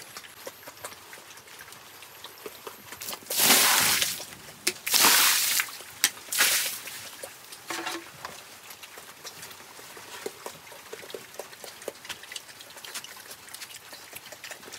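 Water poured or thrown out in three loud splashes, one after another a few seconds in, onto the floor of a pig pen. Before and after the splashes there are faint scattered clicks from pigs feeding at a trough.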